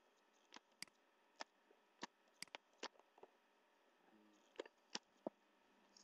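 Faint, irregular clicks of a computer mouse, about ten in six seconds, over near-silent room tone.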